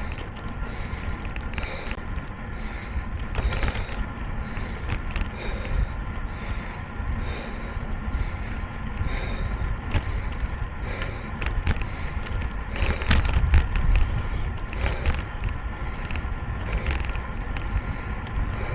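Riding a bicycle: wind rumbles on the microphone over steady road and tyre noise. A soft hiss repeats about once a second, with a few sharp clicks and rattles.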